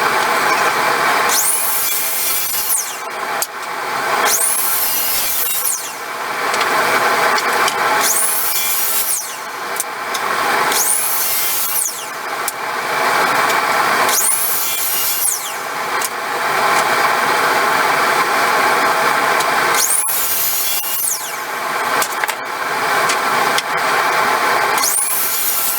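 Electric power tool working old barn board: its motor runs steadily while a high-pitched rasping cut comes and goes about every two seconds, a series of repeated passes over the wood.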